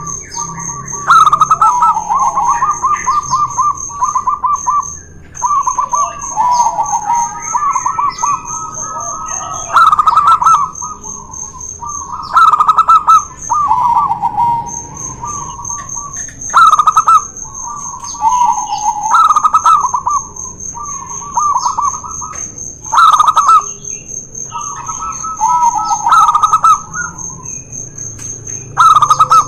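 Zebra doves (perkutut) singing their trilled, rhythmic coos, a new phrase every one to three seconds. The phrases come from two birds answering each other, a local bird and a white one.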